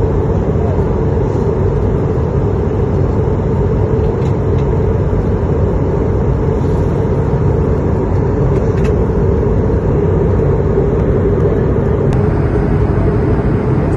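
Steady engine and airflow noise of an Airbus A220-300 airliner's Pratt & Whitney geared turbofans, heard from inside the passenger cabin. The noise is loud and even, with a low rumble and a constant hum.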